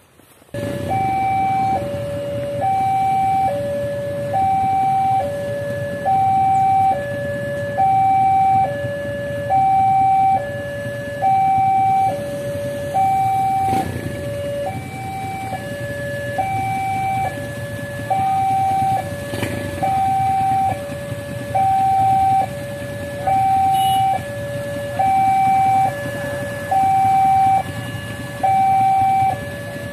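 Railway level-crossing warning alarm sounding with the barriers down, signalling an approaching train: an electronic two-tone signal alternating between a lower and a higher note, each held just under a second. It starts about half a second in, over the low hum of idling motorcycles.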